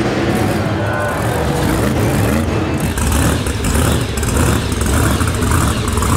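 Monster truck engine running loud, with a heavy low rumble.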